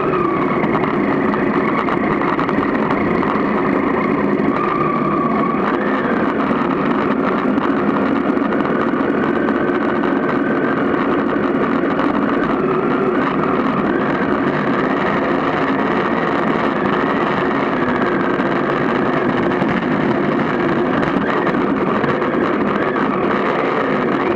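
Motorcycle engine running at low speed while riding over a grassy track, steady with its pitch wavering a little as the throttle changes.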